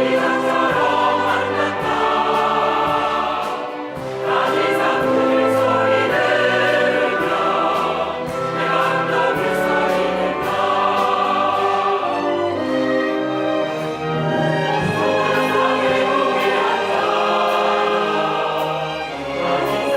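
Choir singing a Korean choral song, with sustained notes that move every second or two and brief breaths between phrases.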